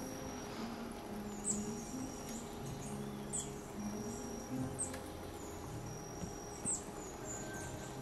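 Faint restaurant background music with low held notes, under short high chirps that fall in pitch every couple of seconds and a thin high steady tone that comes and goes.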